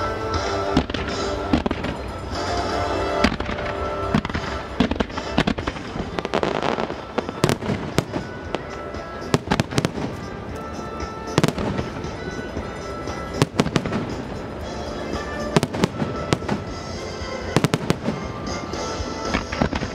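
Music starmine fireworks: a rapid run of aerial shell bursts and crackles, the bangs coming thicker from about seven seconds in, over music played along with the show.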